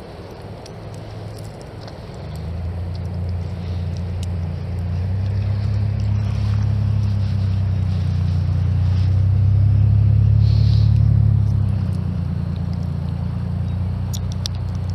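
A passing motor's low, steady engine hum builds over several seconds, is loudest about ten seconds in, then fades. A few faint ticks come near the end.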